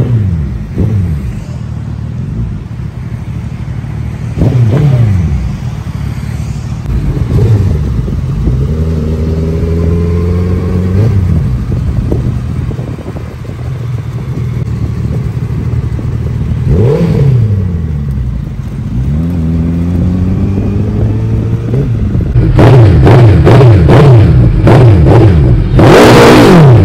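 Suzuki Hayabusa's inline-four engine through an aftermarket exhaust, revving up and dropping back several times as the bike rides off and past. Near the end, a run of quick, very loud throttle blips.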